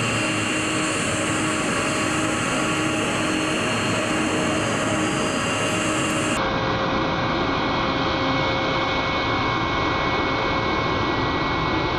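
Steady whine and rumble of running aircraft turbine engines on an airport apron, a constant noise with several high held tones; the tones change abruptly about six seconds in.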